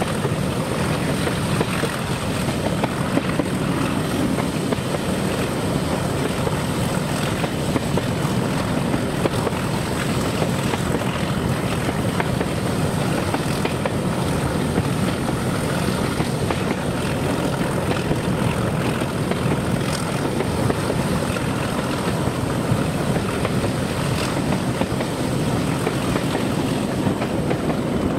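Heritage diesel locomotive running steadily, a continuous low engine and rail rumble with no change in pace.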